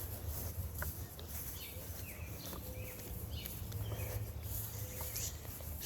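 Outdoor ambience: faint bird chirps, short falling notes repeating every half second or so, over a steady low rumble.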